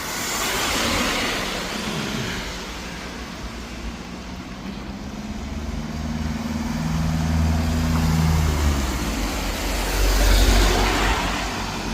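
Street traffic on a rain-wet road: cars hiss past near the start and again near the end. In the middle, a heavy vehicle's engine runs with a low drone whose pitch drops as it fades.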